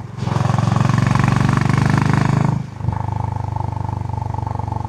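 Stock Honda CB350 H'ness single-cylinder engine and exhaust running under way; it gets much louder a moment in and holds for about two seconds, then suddenly drops back to a steady running sound just past halfway.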